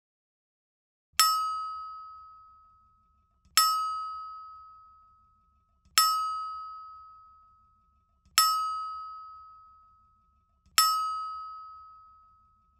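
A bell-like ding sound effect struck five times at even intervals of about two and a half seconds, each a sharp clear ring that fades away.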